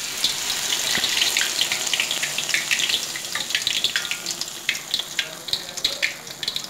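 Battered, tuna-stuffed eggplant frying in hot oil in a wok, just dropped in: a dense sizzle full of sharp crackling pops, slowly easing toward the end.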